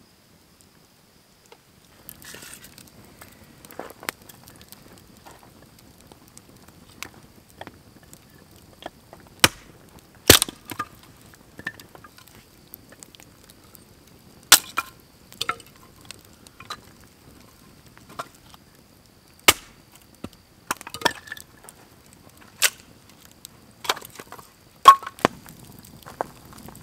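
Firewood being split into kindling: sharp, loud cracks every few seconds, with lighter clicks and the snapping of a campfire between them.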